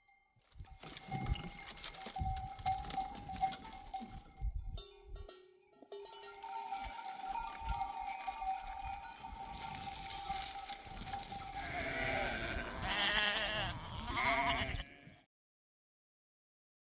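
Bells on a flock of sheep ringing and clanking as the animals move, with several sheep bleating loudly near the end before the sound cuts off.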